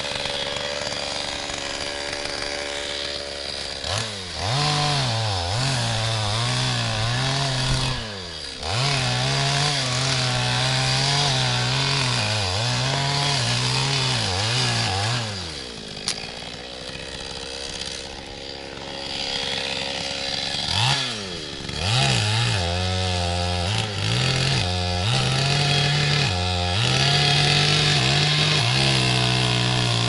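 Two-stroke chainsaw running at a distance, revving up about four seconds in and cutting into a tree trunk, its note wavering and dipping under load. It drops back to a lower speed for a few seconds past the middle, then revs and cuts again to the end.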